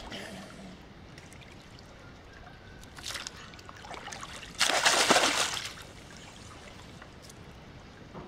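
Muddy water splashing and sloshing around a person wading chest-deep and handling a metal hooked fishing tool: a brief splash about three seconds in, then a louder splash lasting about a second halfway through.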